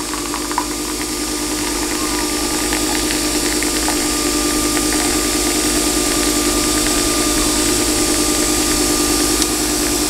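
Nespresso capsule coffee machine brewing an espresso: its motor and pump run with a steady mechanical whir and hum, a little louder after the first couple of seconds, as coffee streams into the cup.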